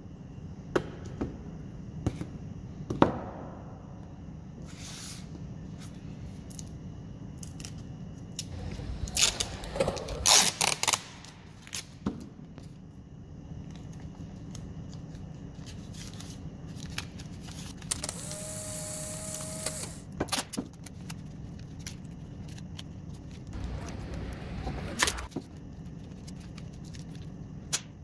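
Masking tape being pulled off the roll and torn, in loud ripping strokes about a third of the way in and again near the end, with a screeching unroll in between. Sharp clicks and knocks of metal skateboard truck parts being handled and set down are scattered throughout, over a steady low hum.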